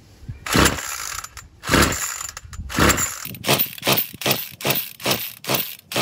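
Recoil pull-starter of a Troy-Bilt two-stroke string trimmer being yanked repeatedly with the choke on: three slow pulls, then a quicker run of short pulls, the engine cranking without firing.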